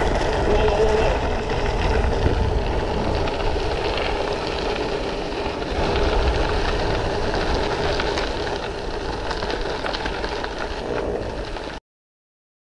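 Mountain bike rolling along a gravel track, heard from a camera on the bike: steady tyre crunch and frame rattle with wind buffeting the microphone. It cuts off suddenly about a second before the end.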